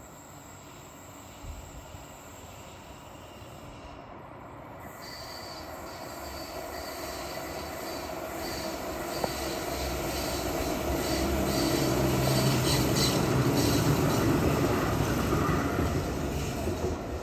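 AnsaldoBreda SL-95 tram approaching and passing on a curve, its running rumble growing steadily louder to a peak a few seconds before the end. A high-pitched wheel squeal from the curved track sets in about five seconds in.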